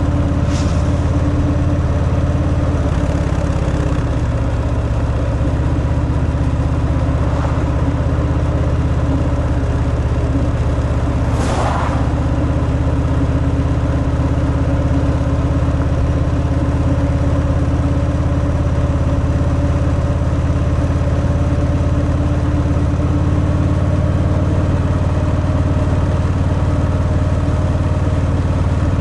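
Harley-Davidson Fat Boy's stock-exhaust Milwaukee-Eight 114 V-twin running steadily while riding, its note shifting slightly about four seconds in. A short whoosh passes about eleven seconds in.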